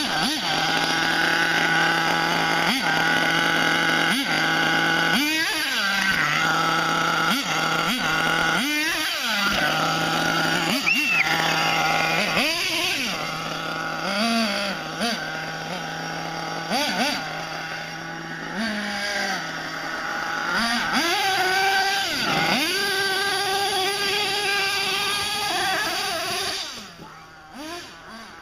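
HPI Savage X 4.6 nitro RC monster truck's small two-stroke glow engine, idling steadily between repeated short revs as the truck is driven. About three quarters of the way through it holds at higher revs for several seconds, then drops off near the end.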